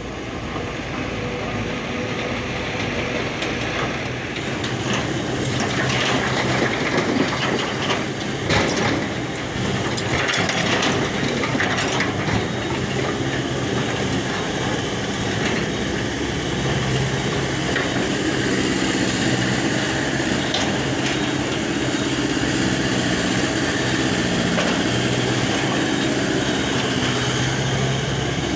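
Excavator's diesel engine running under load while its ripper tooth digs, with scraping and cracking knocks in the first half. A steady pitched engine note grows stronger in the second half.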